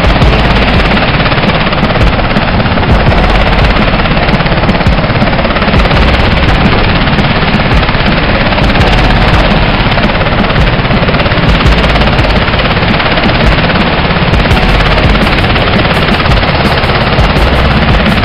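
UH-60 Black Hawk helicopter running close by, loud and steady, its rotor wash buffeting the helmet-camera microphone into a dense, rapid low pulsing.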